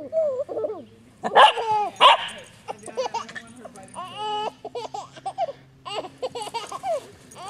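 Cavachon puppy yapping in short high-pitched barks to invite play, in a run of quick yips. Mixed with it is a baby's babbling and giggling.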